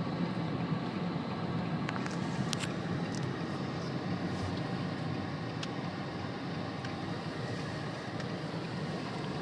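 Steady road and engine noise heard inside a moving car, with a few faint ticks.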